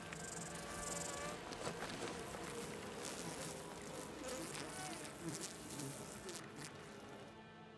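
A swarm of wasps buzzing around their hanging nest: many overlapping buzzes that rise and fall in pitch as single insects pass close. It thins out near the end.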